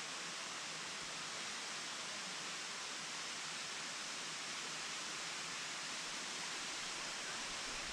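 Steady rush of falling water from a waterfall, an even hiss that does not change.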